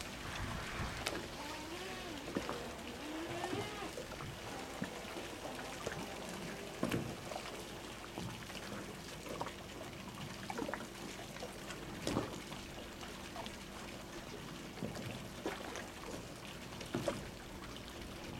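Quiet waterside ambience: water lapping and trickling against the quay, under a faint steady hum. There are a few soft knocks scattered through it.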